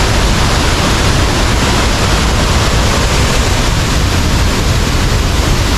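Waterfall rushing: a loud, steady wash of falling water, with a heavy low rumble.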